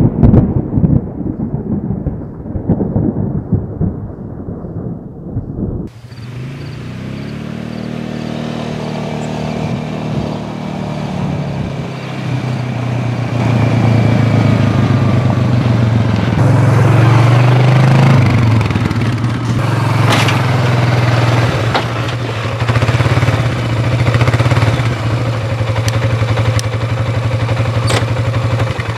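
Thunder rumbling and dying away, then from about six seconds in an ATV engine running, its pitch falling and rising with the throttle and growing louder as it comes near.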